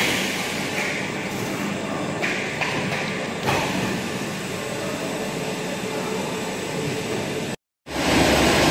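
Bottling-line machinery running steadily: the spray sterilizer tunnel and chain conveyors carrying plastic bottles, with a few sharp knocks in the first few seconds. The noise cuts out briefly near the end and comes back louder.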